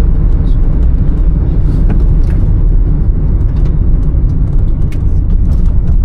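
Steady low rumble of a car on the move, with scattered light clicks over it.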